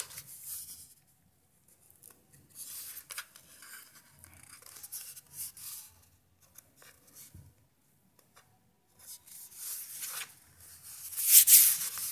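Handling noise from hands gripping and turning a plastic-cased power bank: rubbing and scraping in several short bursts with gaps between them, the loudest burst near the end.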